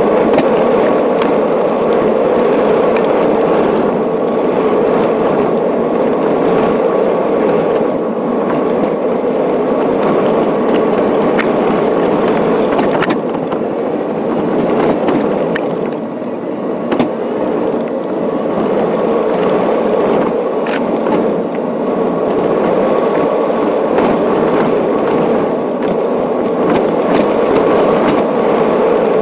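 Car driving along a gravel track, heard from inside the cabin: steady tyre and road rumble with scattered clicks of gravel under the tyres and a thin steady whine. A sharp knock about 17 seconds in.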